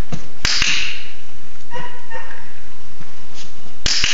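Dog-training clicker clicked twice, about three and a half seconds apart, each a sharp double click of press and release. The clicks mark the puppy for standing with all four feet on the platform.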